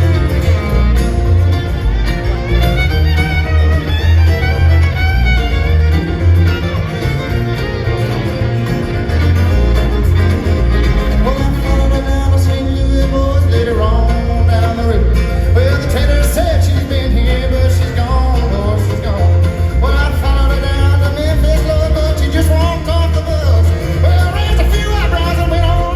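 Live bluegrass band playing an instrumental break, with a fiddle line over a steady pulsing bass.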